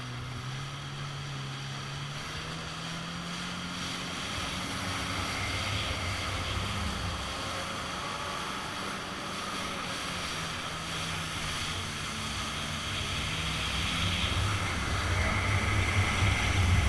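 Kawasaki jet ski engine running under way, its note stepping up about two seconds in as the throttle opens, with water spray rushing past the hull. The sound grows louder toward the end.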